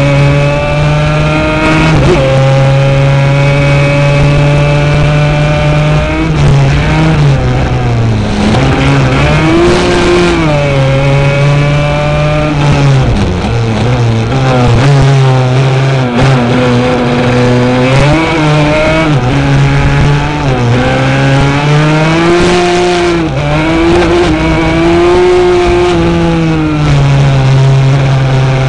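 Racing quad's engine running hard at high, steady revs, with its pitch dipping and climbing back several times.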